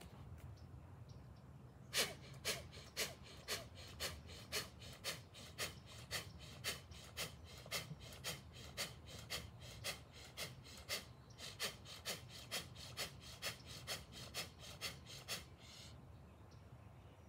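Rapid, forceful pranayama breaths (bhastrika/kapalabhati breath infusion), sharp puffs at about two a second. They start about two seconds in, break briefly partway through, and stop shortly before the end.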